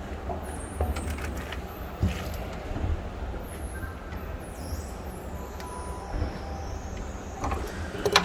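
Steady low rumble with scattered sharp clicks and knocks, from escalator step panels being pressed and clipped into place.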